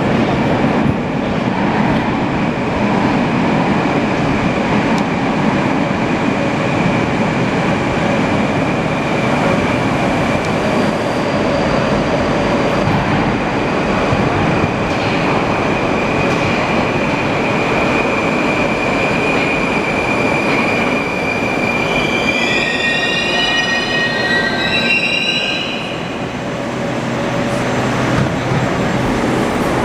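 Moscow metro 81-765.2 "Moskva" train pulling into the platform: steady rumbling running noise with a constant high whine. Near the end, several whining tones rise and fall for a few seconds as it brakes to a stop.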